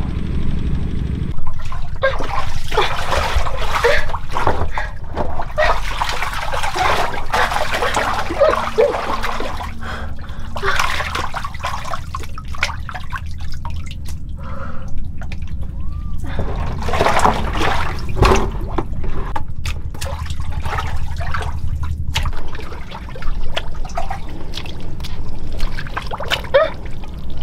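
Water splashing and sloshing in uneven bursts, over a steady low hum that stops about three quarters of the way through.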